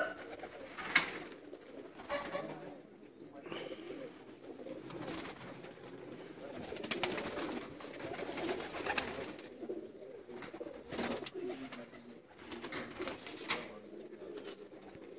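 A loft full of domestic pigeons cooing, a continuous low burbling from many birds, with a few sharp clicks scattered through it.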